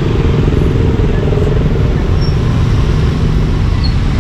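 Steady, loud rumble of road traffic, with motorbike engines running.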